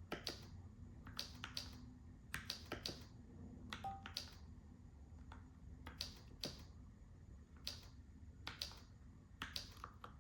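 Keystrokes on a Keychron K4 v2 mechanical keyboard with Gateron G Pro brown switches, slow and uneven: single presses and quick pairs or triplets with pauses of a second or so between.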